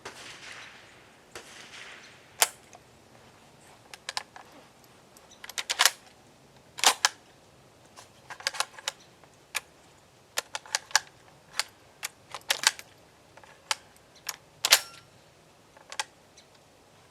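Irregular sharp metallic clicks and clacks, some single and some in quick clusters, of a Centurion BP12 shotgun and its magazine being handled and loaded, after a soft rustle at the start.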